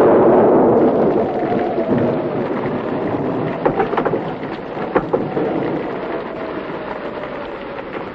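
Thunderstorm: a loud rumble of thunder dying away into steady heavy rain, with a few sharp cracks in the middle.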